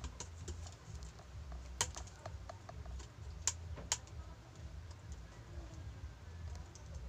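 Light, irregular clicks and taps from hands handling a PVC-pipe mousetrap while threading and tying its string, with a few sharper clicks near the middle, over a low steady hum.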